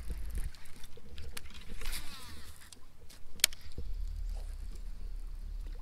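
Baitcasting reel on a cast: the spool whirs as line pays out for about half a second, then one sharp click as the reel is engaged for the retrieve.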